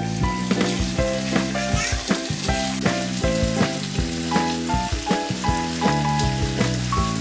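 Potato slices sizzling as they fry in oil in a pan, turned with a wooden spatula, under background music with a steady beat and a melody.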